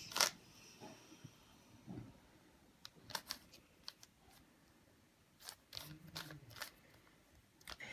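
Rubik's cube being twisted by hand: soft, scattered plastic clicks of the layers turning, some in quick clusters of two or three.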